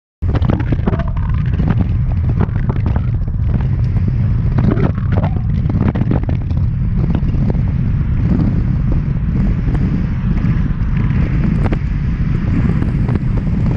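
Strong gusting wind buffeting the microphone: a loud, continuous rumbling roar with ragged gusts and no let-up.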